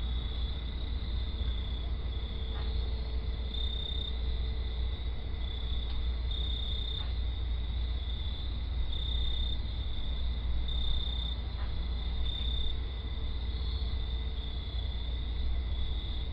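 Night ambience: insects chirping in a steady high trill that swells every second or two, over a low rumble.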